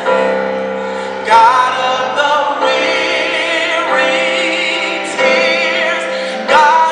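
Youth choir singing, long held notes with a voice in vibrato on top; fresh phrases come in about a second in and again near the end.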